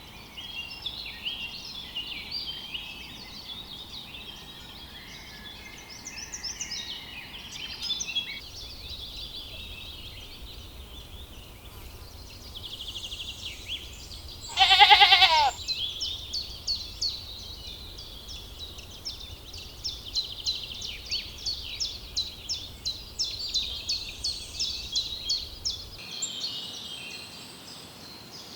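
A lamb bleats once, loudly and with a wavering pitch, about halfway through. Birds chirp high and thinly throughout, with a fast run of repeated notes in the second half.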